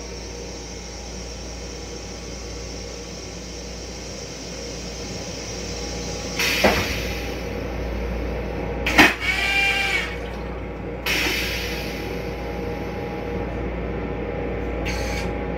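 Stainless-steel railcar toilet flushing: sharp clunks about six and a half and nine seconds in, the second the loudest, with rushing rinse water after each, over a steady hum.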